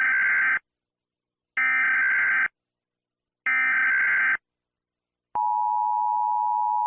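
Emergency Alert System SAME digital data bursts: three bursts of about a second each, a second apart, the end-of-message code that closes the alert. A steady electronic tone follows for about two seconds and cuts off.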